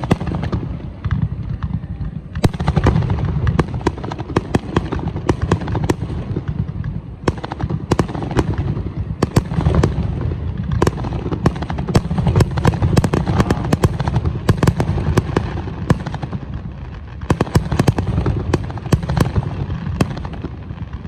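Aerial fireworks display: a rapid barrage of sharp bangs and crackling over a steady low rumble, with short lulls between volleys.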